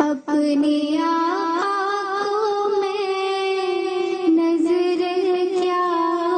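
A girl singing a naat, an Urdu devotional song, into a microphone, drawing out long held notes with slow bends and small steps in pitch, after a brief burst of noise at the very start.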